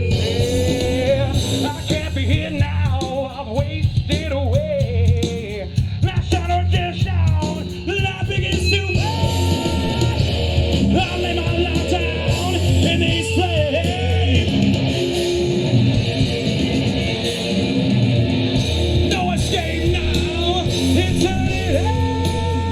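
Live rock band playing a song at full volume, led by guitar over bass and drums, with lead lines that bend in pitch and hold long notes.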